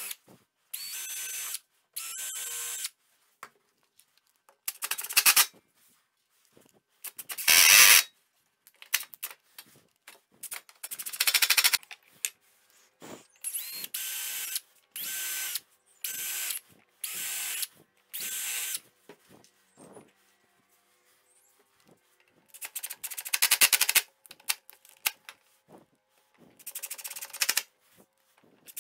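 Cordless drill running in a dozen or so short bursts with pauses between, drilling pilot holes and driving screws through a chipboard fence board clamped to another.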